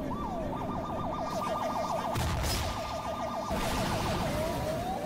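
Police siren, switching from a slow wail to a fast yelp and back to slow rising sweeps near the end, with a loud rushing noise under it about two and three and a half seconds in.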